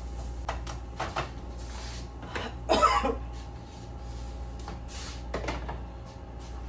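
Kitchen handling noises: several light knocks and clicks of a spoon and kitchen containers being handled, with one louder, longer noise about three seconds in, over a steady low hum.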